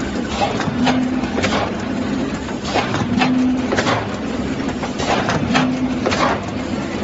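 ZK-5540C moon cake box making machine running: steady mechanical clatter with repeated sharp clicks, and a short low hum that returns about every two and a half seconds.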